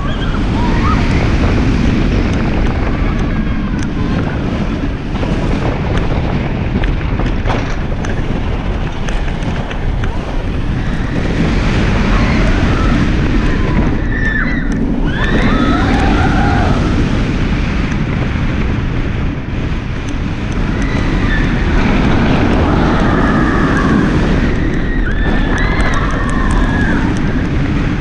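Wind rushing over the microphone and the rumble of Kraken, a Bolliger & Mabillard floorless steel roller coaster, with the train running at speed through its elements. Voices rise and fall in pitch twice, about halfway through and near the end.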